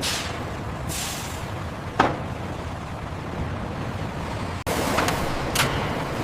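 Factory floor noise: a steady machinery din with short bursts of air hiss and a sharp clank about two seconds in. The sound drops out for an instant a little past the middle and comes back somewhat louder.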